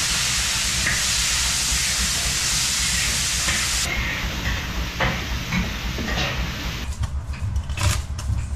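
A steady hiss, like sizzling or steam, for the first half; after a cut, a few scattered knocks, then a kitchen cleaver chops fast on a wooden cutting board, several strokes a second, from about seven seconds in.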